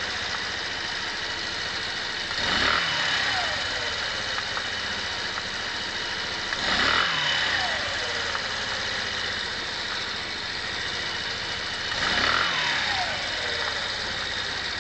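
125 cc motorcycle engine idling while stationary, revved briefly three times, with the pitch falling back to idle after each rev. It is running to show an abnormal noise that the owner is chasing.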